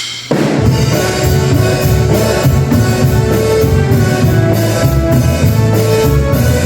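A band starts playing abruptly a moment in: drum kit keeping a steady beat over bass and guitar.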